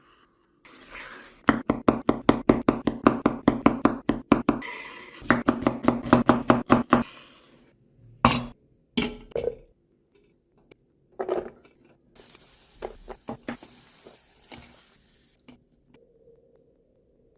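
A knife chopping quickly on a cutting board in two runs of rapid, even strokes, about five a second, followed by a few scattered knocks and taps.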